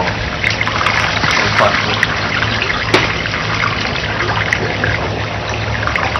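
Running water splashing steadily, with a steady low hum underneath and a single sharp click about three seconds in.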